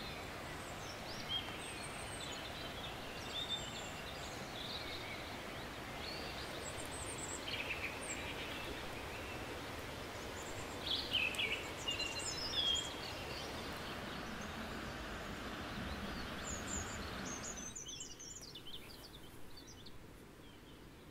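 Woodland songbirds: short high chirps and trills scattered throughout, loudest a little past halfway, over a steady rushing background noise that falls away near the end.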